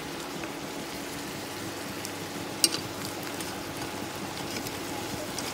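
Shrimp in black-pepper sauce simmering in a pot on an induction cooktop: a steady hiss with faint crackles. A single sharp click comes about two and a half seconds in.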